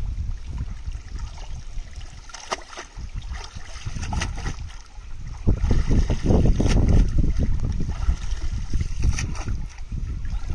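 Pond water splashing and pouring off a cast net as it is hauled in by hand and lifted out of the water, with scattered drips and splashes. Loudest for a couple of seconds just past the middle, as the net comes up.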